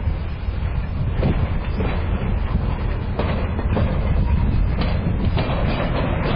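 Flatcars of a continuous welded rail work train rolling past, wheels clicking over rail joints every second or so over a steady low rumble.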